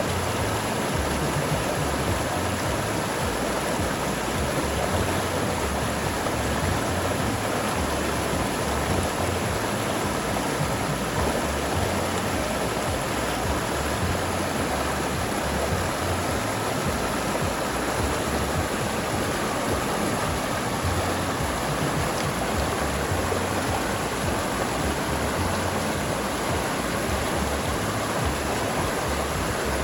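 River water flowing steadily, an even, continuous rush with no breaks.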